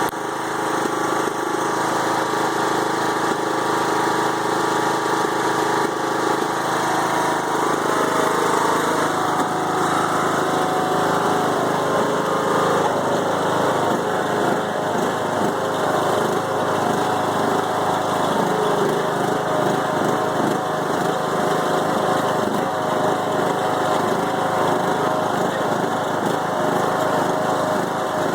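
Briggs & Stratton Intek 20 HP engine on a Craftsman riding mower running steadily at idle, with a rough, uneven idle.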